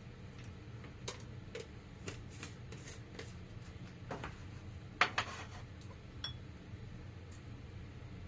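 Scattered light clicks and taps of kitchen items being handled, over a low steady hum, with a louder clatter about five seconds in.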